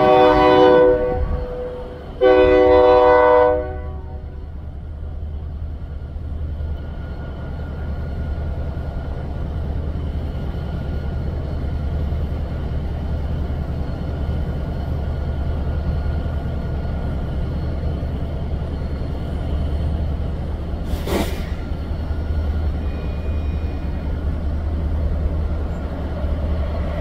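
Diesel freight locomotive's air horn sounding two blasts, a short one and then a longer one, followed by the steady low rumble of the train running. A single sharp knock about three-quarters of the way through.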